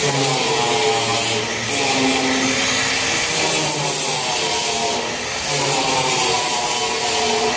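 Small angle grinder with an abrasive disc grinding down silicon bronze weld spots on sheet metal: a steady motor whine under a rough grinding noise, with the pitch shifting as the load changes and two brief dips.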